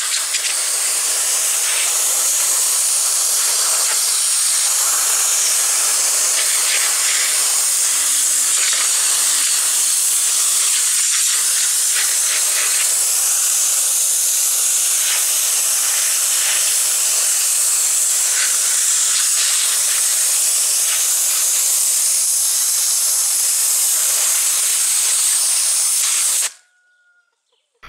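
High-pressure washer jet blasting a plastic Coca-Cola bottle: a loud, steady hiss of spray with water and debris spattering off the bottle and the concrete. It cuts off suddenly near the end.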